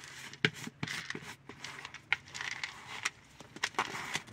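Powder being shaken out of a plastic shaker jar into a plastic bowl: irregular sharp taps and clicks of the jar with a soft hiss of falling powder.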